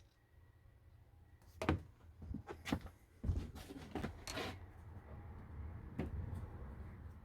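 A handful of sharp clicks and knocks of small hard parts being handled and set down, bunched between about one and a half and four and a half seconds in, with one more about six seconds in.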